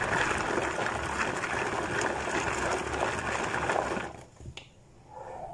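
Electric food chopper running steadily as it chops onions and garlic, then switched off and stopping abruptly about four seconds in.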